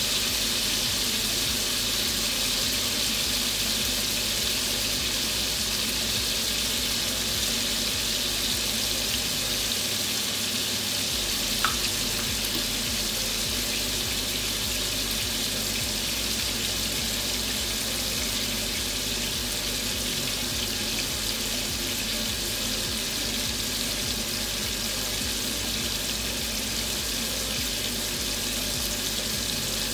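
Pork chops sizzling steadily in hot oil in a frying pan, with one small tick about twelve seconds in.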